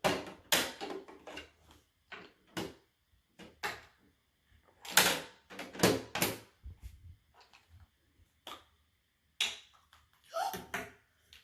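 Irregular plastic clicks and knocks from handling a toy vending machine and its surprise capsules, about a dozen sharp taps with short gaps between.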